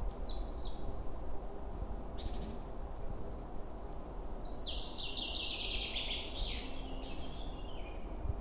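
High chirping calls over a steady low rumble: a few short chirps near the start and about two seconds in, then a longer run of quick notes stepping down in pitch from about four seconds in.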